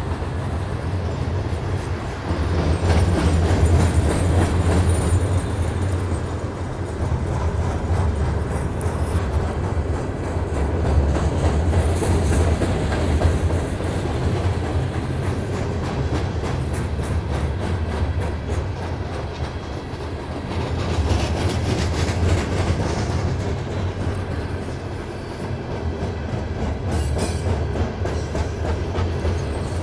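Norfolk Southern freight train's open-top hopper cars rolling over a steel girder bridge. A heavy steady rumble with the wheels clacking over the rail joints swells and fades as the cars pass.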